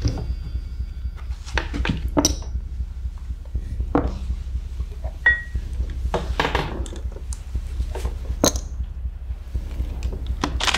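Poker chips clicking and clinking as they are handled and tossed on a table, a scattered run of short clacks over a low steady hum.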